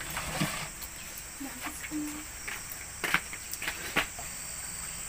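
Steady high-pitched chirring of crickets, with a few sharp clicks and knocks scattered through it.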